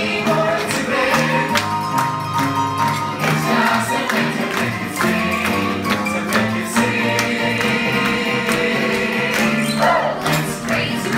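Upbeat background music with a steady percussive beat, cutting in suddenly out of silence.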